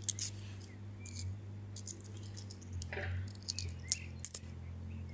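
Irregular small sharp clicks and rubbing noises from the phone being held and moved, over a steady low hum.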